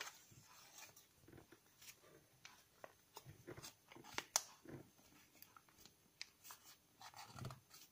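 Origami paper crinkling and rustling between the fingers as it is folded and creased, in scattered soft crackles with one sharper crackle a little past the middle.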